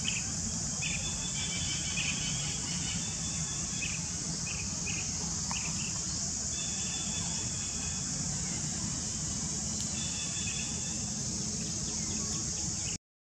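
Steady, high-pitched insect drone, with short chirping trills coming and going over it and a low, steady rumble underneath.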